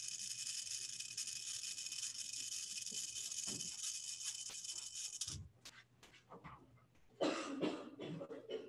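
A slow, deep inhalation through an incentive spirometer: a steady hiss of air drawn through the device that stops about five seconds in as the breath is held. Near the end a shorter, lower rush of air follows as the breath is let out.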